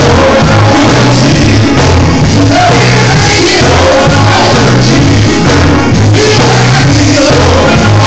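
Loud live gospel quartet music: a lead singer with the group behind him over electric guitars, bass and drums, with a steady pulsing bass line.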